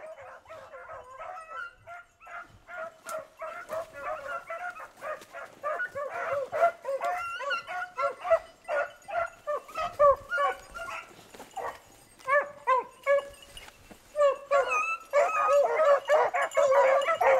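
A pack of beagles baying and yelping on a rabbit's trail, scattered at first, then more and more voices together and louder toward the end. A brief knock about ten seconds in.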